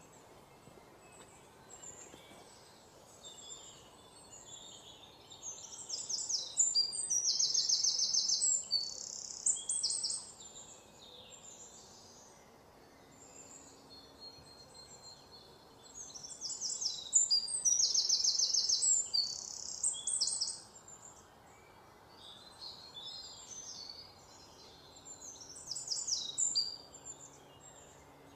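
A songbird singing high, rapid, repeated phrases in two long bouts of several seconds each and a shorter one near the end, over a faint outdoor background.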